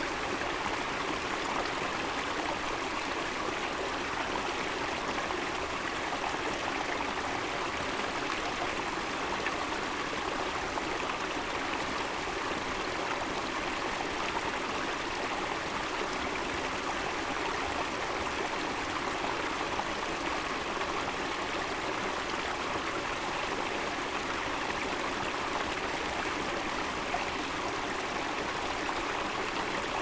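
Small mountain stream splashing and trickling over rocks in small cascades, a steady, unbroken sound of running water.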